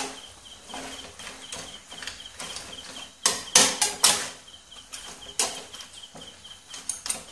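A spatula scraping and knocking against a black pan as a dry chicken fry is stirred, in scattered clusters of short scrapes and taps. The loudest burst comes about three to four seconds in.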